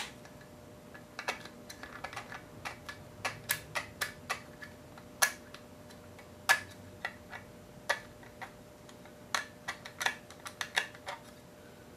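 Metal scribe scratching and clicking against a small Tecumseh engine's case as the outlines of its bolts are marked: irregular sharp clicks and short scrapes, the loudest about five and six and a half seconds in.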